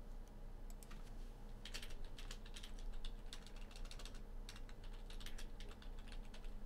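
Computer keyboard typing: an irregular run of quick key clicks, several a second.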